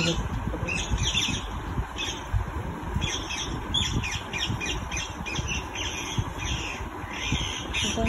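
Parrots squawking and chirping in many quick, short calls, over a steady low rumble.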